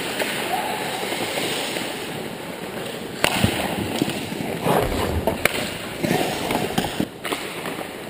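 Ice hockey play at close range: a steady scrape and hiss of skates on the ice, then sharp clacks of sticks and puck about three seconds in and several more over the next few seconds as players scramble in front of the net.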